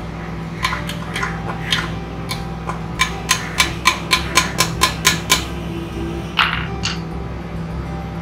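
Hand hammer tapping on metal at the governor arm shaft of a small generator engine's aluminium crankcase: a few scattered taps, then a quick run of about ten sharp ringing strikes at about four a second, then a brief rattle.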